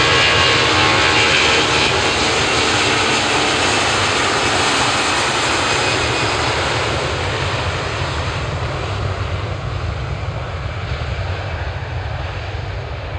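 Airliner engines passing close and then receding: a loud, steady rush with a few held tones at first, fading gradually as the high hiss dies away over the second half.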